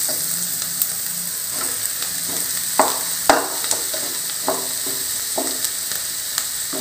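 Vegetables and scrambled egg sizzling as they are stir-fried in a non-stick kadai, with a steady high hiss. A wooden spatula scrapes and knocks against the pan about once a second, the loudest knocks about three seconds in.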